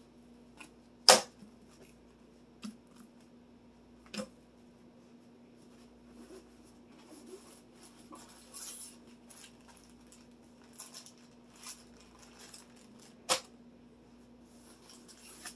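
Sharp metallic clicks and knocks of tools and bicycle rack parts being handled during disassembly: a loud one about a second in, others near four seconds and near the end, with fainter clinks between, over a faint steady hum.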